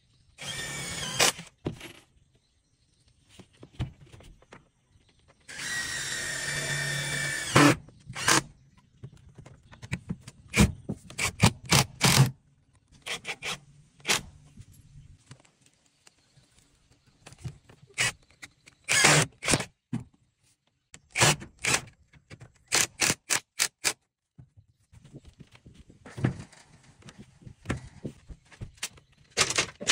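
Cordless drill boring into bamboo in two short runs, its motor giving a steady pitched whine. Then comes a long series of sharp knocks on the bamboo frame, some in quick runs of several blows.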